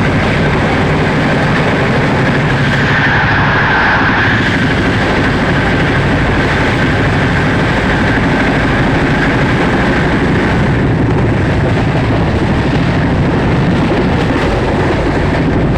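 Express passenger train running at high speed, around 135 km/h: a loud, steady rush of wheels on rail and passing air. A high whine comes up about three seconds in and fades out by about ten seconds.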